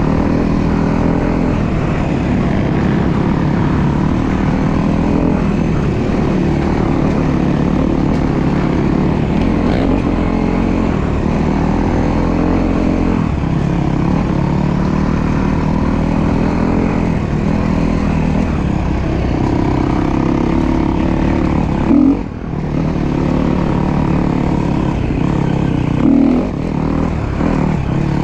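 Enduro dirt bike engine running under riding load, its pitch rising and falling as the throttle opens and closes. It drops off briefly about three-quarters of the way through, with two short loud knocks near the end.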